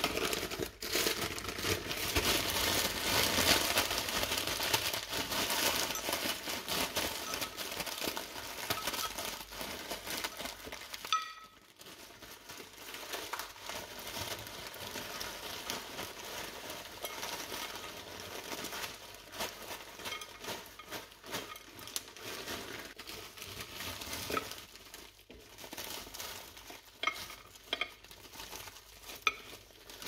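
Mixed vegetables poured from a crinkling plastic bag into a glass baking dish: a dense rattling hiss of pieces for about the first eleven seconds, which cuts off suddenly. After that come scattered clicks and rustles as smaller handfuls drop into the dish.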